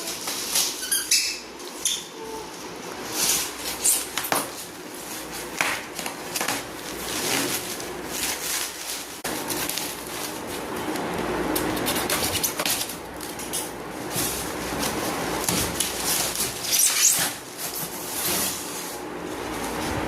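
Irregular rustling, scraping and light clicks and knocks of hands handling packaging.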